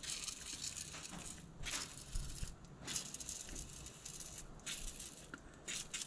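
WD-40 aerosol can sprayed through its straw in short hissing squirts, a few spells of spray coming and going.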